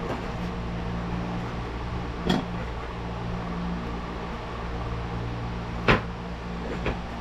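A steady low hum with three short, sharp knocks from hand work on a metal vent window frame; the loudest knock comes about six seconds in.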